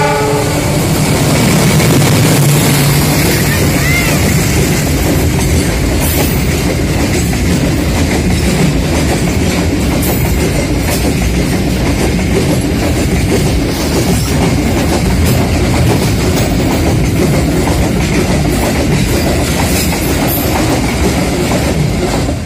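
CC 206 diesel-electric locomotive passing close by, its engine loudest in the first few seconds, followed by a long container freight train rolling past with steady wheel clatter. The last of a horn blast sounds at the very start.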